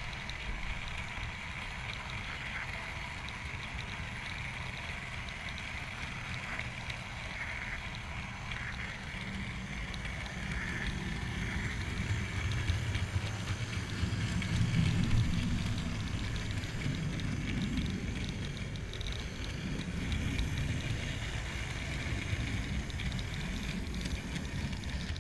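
Model train running along the layout's track, heard from a camera riding on one of its wagons: a steady rumbling rattle of wheels on rail, growing louder about halfway through.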